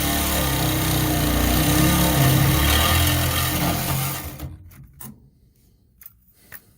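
Power tool cutting through the steel of a torsion bar bracket where it is still joined to the car's frame. It runs hard, then stops suddenly about four seconds in, followed by a few light clicks.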